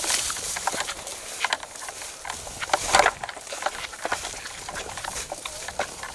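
Footsteps crunching and rustling through dry rice stubble and straw in a harvested paddy field, an irregular run of steps, loudest about three seconds in.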